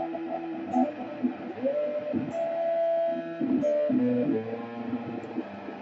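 Electric guitar played through effects pedals: held notes that slide in pitch and shift every second or so, with one upward glide about a second and a half in.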